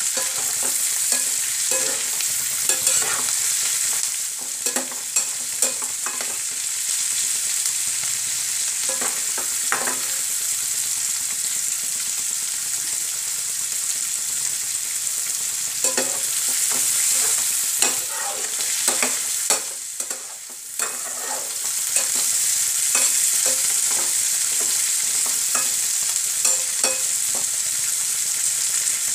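Onion pieces frying in butter in a pan, with a steady sizzle, and a steel spatula scraping and clinking against the pan as they are stirred. The onions are being lightly sautéed only until translucent; the sizzle dips briefly about two-thirds of the way in.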